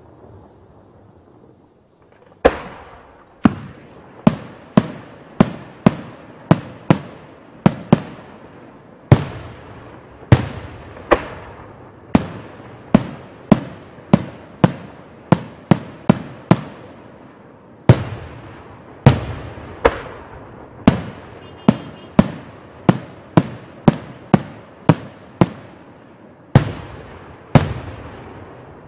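Aerial firework shells bursting in a long rapid series of sharp bangs, about one to two a second, each trailing off in an echo; the bangs begin about two seconds in.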